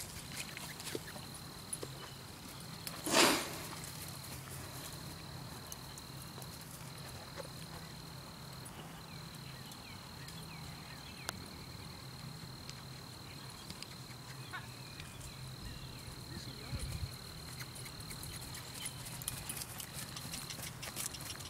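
Faint hoofbeats of a horse moving on grass, with a steady high insect drone throughout. A brief loud burst of noise about three seconds in.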